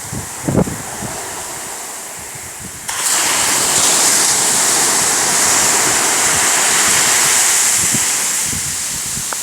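Sea surf washing in as a steady hiss, which jumps suddenly louder about three seconds in.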